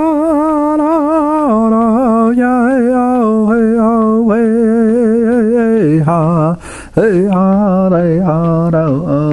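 A single powwow singer's lead line in a high, strained voice. Long held notes with a wavering vibrato step down in pitch, with a quick breath about two-thirds of the way through.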